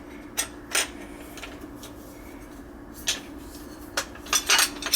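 Scattered light metal clicks and clacks from handling an angle grinder and its grinding disc and fittings, several bunched together near the end, over a faint steady hum.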